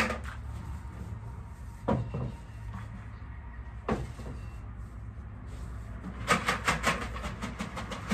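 A plastic bucket being handled over feed bowls: single hollow knocks near the start, about two seconds in and about four seconds in, then a quick rattling run of clicks and clatters a little after six seconds, over a steady low hum.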